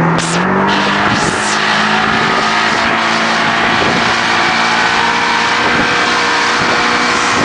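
Motorboat engine running steadily at speed, a continuous drone under a dense rush of noise.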